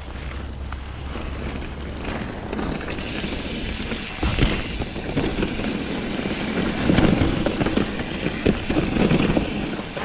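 Mountain bike rolling downhill over a rocky, stone-paved trail: steady tyre and rolling noise, getting louder a few seconds in, with many sharp knocks and rattles as the bike goes over the rocks in the second half.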